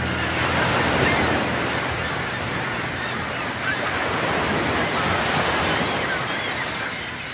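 Ocean surf: waves breaking and washing up a sandy beach in a steady rushing wash, slowly fading toward the end.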